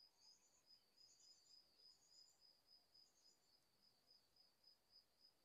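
Near silence with faint insect chirping: one high, even chirp repeating about four times a second, and a few fainter, higher chirps in between.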